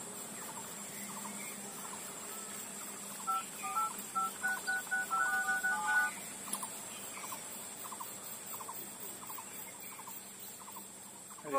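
Mobile phone keypad tones: about ten short two-note beeps in quick succession as a number is dialed.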